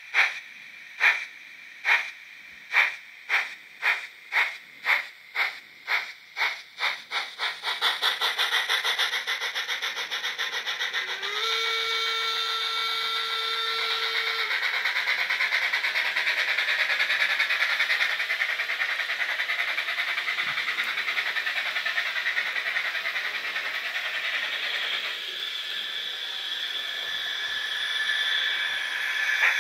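Digital sound decoder of a Fleischmann HO-scale Br 18 steam locomotive model playing steam exhaust chuffs as it pulls away: slow, about one a second, then quickening until they run together into a rapid hissing beat. A steam whistle blows for about three seconds partway through.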